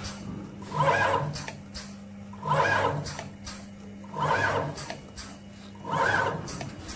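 Thermocouple tip cement filling machine cycling: a short whining burst about every 1.7 seconds, four in all, over a steady low hum.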